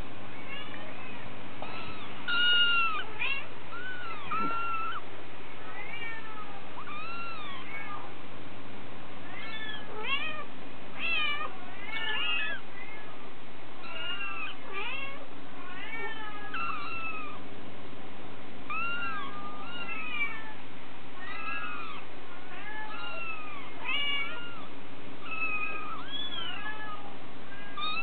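Young kittens mewing over and over: short, high-pitched mews that rise and fall in pitch, coming one or two a second with brief pauses between runs.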